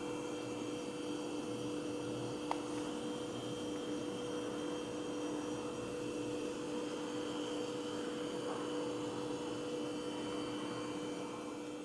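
A steady electrical hum made of two constant low tones over a faint hiss, with one short click about two and a half seconds in.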